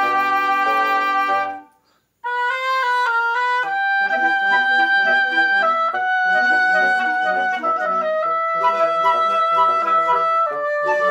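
Woodwind quintet of flute, clarinets, French horn and bassoon playing. A held chord ends, a brief silence follows, and then a moving melody starts over the lower parts.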